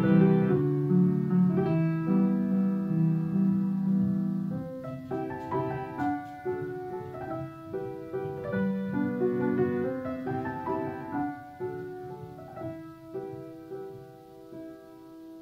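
Solo piano playing a gentle, slow theme as background music, growing steadily quieter toward the end.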